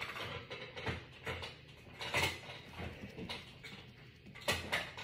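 Irregular light knocks and clatter of small objects being handled on a countertop.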